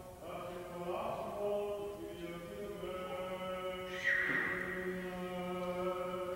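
A man's voice chanting the liturgy of an Orthodox baptism service in long, held notes. About four seconds in, a brief high-pitched sliding cry cuts across the chant.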